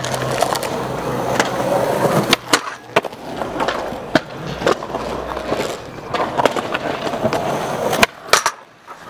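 Skateboard rolling on concrete, its wheels making a steady rumble, broken by several sharp clacks of the board striking the ground, one loud one about eight seconds in.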